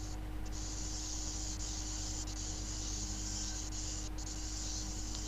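Steady high hiss with a low electrical hum, from an open microphone's line noise heard through an online video call. The hiss drops out briefly a few times.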